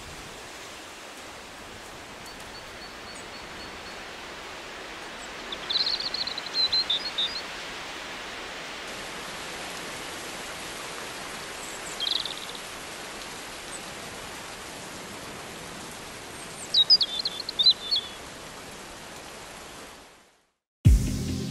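Outdoor garden ambience: a steady, even hiss with a bird chirping in three short spells, about six, twelve and seventeen seconds in. The ambience fades out near the end, and after a moment's silence music starts with a hit.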